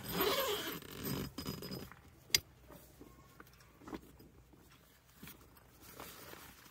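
Tent fabric rustling and being handled as a window flap is opened and rolled down, with one sharp click about two seconds in, then softer scattered rustles.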